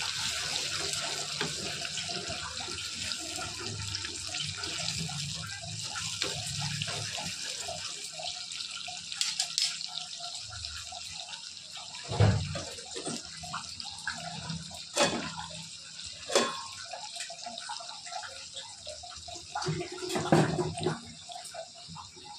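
A butter tadka of dry red chillies, curry leaves and ginger-garlic sizzling in a small aluminium pan on a gas burner. The hiss is strong at first and dies down after several seconds, leaving scattered sharp pops and crackles.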